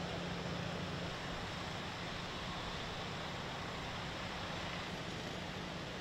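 Steady rushing roar of turbulent white water pouring through a concrete dam outlet, with a low hum under it that fades about a second in.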